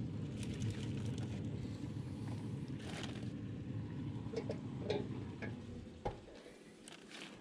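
Steady low rumble of wind on the microphone, with light clicks, knocks and foil crinkles as foil-wrapped ribs are handled on the pellet grill's metal grates. The rumble stops abruptly about six seconds in.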